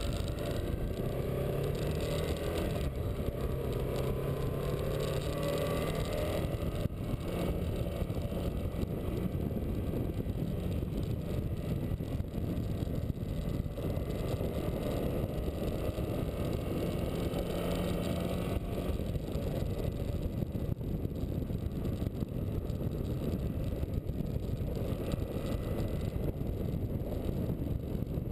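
Motorcycle engine running on the move, with wind noise over the microphone; the engine note glides in pitch during the first few seconds, then holds steady at cruising speed.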